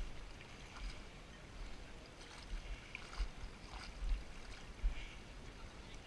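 Water sloshing and splashing around the legs of a person wading through shallow creek water, with irregular splashes about once a second. Low bumps on the body-worn camera's microphone come and go underneath.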